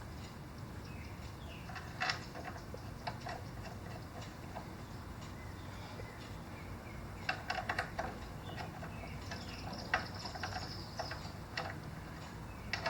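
Light metallic clicks and taps of hand tools and bolts as the front brake caliper bolts are threaded in and run down, with a quick cluster of ticks about seven seconds in.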